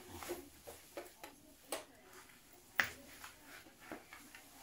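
Scattered light taps and clicks of large cardboard floor-jigsaw pieces being handled and pressed into place on a wooden floor, the sharpest knock nearly three seconds in.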